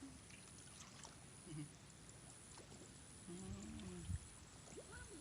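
Near silence, with a faint, distant human voice for about a second a little past the middle.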